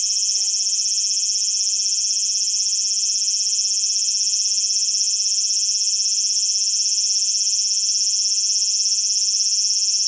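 A caged large brown cicada (aburazemi) singing a loud, steady, unbroken high shrill that holds without a break throughout.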